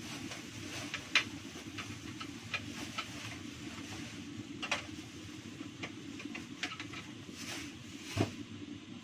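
Kitchen clatter: scattered clinks and knocks of cookware and utensils being handled, the sharpest about a second in and a duller knock near the end, over a steady low hum.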